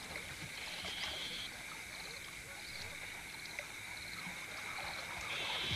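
A steady, high-pitched night chorus of calling animals. A second, higher-pitched band of calling comes and goes, about a second in and again near the end.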